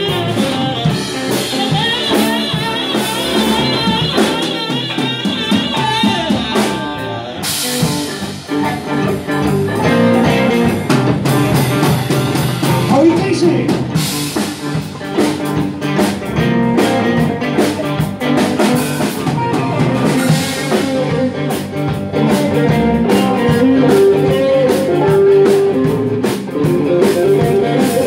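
A live blues band plays a boogie shuffle on drum kit, electric guitars, bass, keyboards and saxophone. From about seven seconds in, the drums and cymbals come through strongly.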